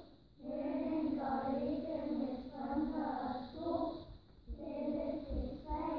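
A group of young children singing a rhyme together in unison, pausing briefly at the start and again about four seconds in.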